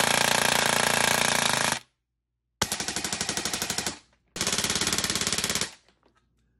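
Electric airsoft rifle (AEG) firing full auto on two 11.1 V 2200 mAh LiPo batteries in parallel: a very rapid mechanical rattle. A long burst stops about two seconds in, followed by two shorter bursts of about a second and a half each.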